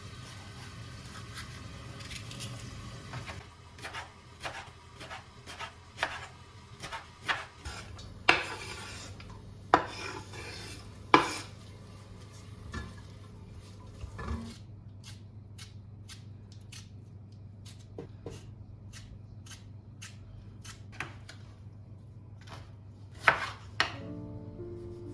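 Kitchen handling sounds: a string of separate clinks and knocks of dishes and utensils, several sharp ones in the middle, over a low steady hum. Soft music comes in near the end.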